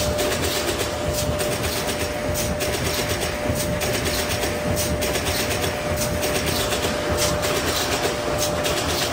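Automatic corrugated-box folder gluer stitcher running: a steady mechanical clatter with rapid, repeated clicks over a steady hum.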